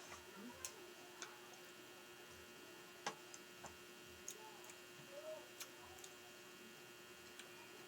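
Near silence with a steady faint electrical hum, broken by irregular soft clicks and smacks typical of someone chewing crunchy green mango close to the microphone.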